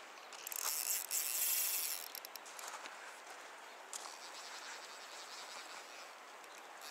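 A fly reel's click-pawl ratchet buzzing in rapid clicks for about a second and a half as line runs on the reel, then a few single clicks. A steady faint hiss of the river runs underneath.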